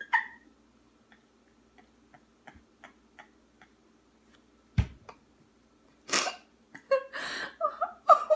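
A burst of a woman's laughter trails off, followed by a few seconds of faint fingertip taps on touchscreens. A single loud thump comes a little past halfway, then a sharp gasp and high, wavering laughter start up again in the last two seconds.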